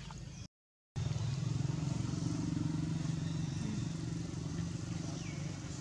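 A motor engine running steadily with a low, evenly pulsing hum, starting after a brief silent dropout about half a second in.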